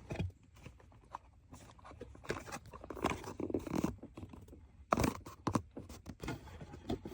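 Irregular clicks, knocks, scrapes and crinkling of hands handling a distributor cap and its parts, the loudest knock about five seconds in.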